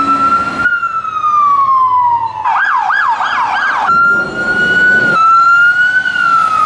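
Emergency-vehicle electronic sirens in a string of short spliced clips. First a wail slowly winding down, then about a second and a half of fast yelp at roughly three to four cycles a second, then held wail tones that glide gently up and down.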